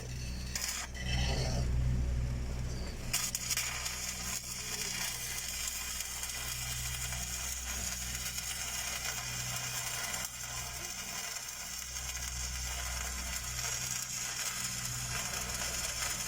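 Stick (SMAW) welding arc crackling and hissing steadily as a downhill pass is run on a large steel pipe, starting about three seconds in, over a steady low machine hum.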